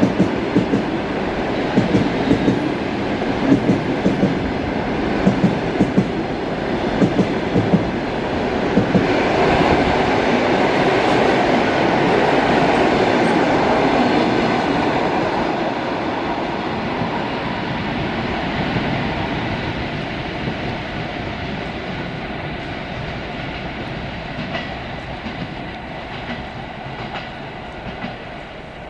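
Passenger coaches of a locomotive-hauled train passing at speed, the wheels clicking over rail joints at a regular beat. About nine seconds in, an EP2D electric multiple unit passes close on the next track, louder and brighter, then fades steadily as the trains move away.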